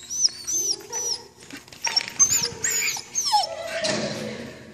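Border terrier whining in a string of short, high-pitched whines that rise and fall, with a longer falling whine a little past three seconds in.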